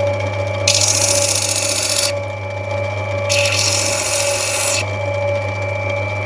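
Electric lapidary grinder running with a steady hum, while a piece of rough opal is pressed to the wheel twice, each time a grinding hiss of about a second and a half: about a second in and again past three seconds.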